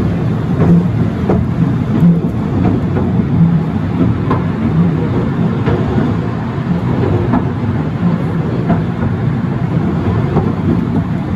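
Carriage of the Scenic Railway, a steep cable-hauled incline railway, rumbling along its track, with a regular knock about every 0.7 seconds from the wheels and running gear.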